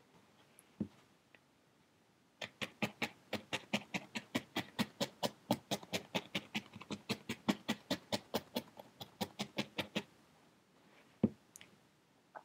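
Felting needle stabbing repeatedly through wool into a foam pad: a steady run of crisp pokes, about five a second, starting a couple of seconds in and stopping near the end, followed by a single knock.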